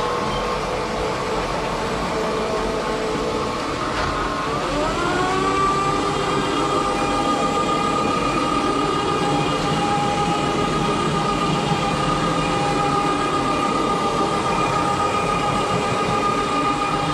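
Rotary extraction carpet-cleaning tool running over carpet: its spinning head and vacuum suction through the hose make a steady whining drone. About four seconds in, the pitch dips briefly, then rises and holds at a higher steady pitch.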